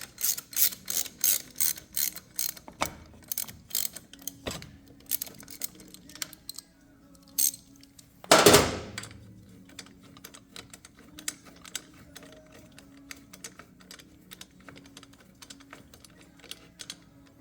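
Metallic clicking and ticking of bolts and hand tools as the motorcycle's brake caliper and rotor bolts are threaded in. The clicks come quick and regular at first, about three to four a second, then lighter and scattered, with one loud knock about eight seconds in.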